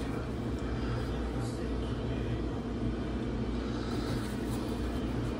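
A steady low machine hum at an even level, with no change or break.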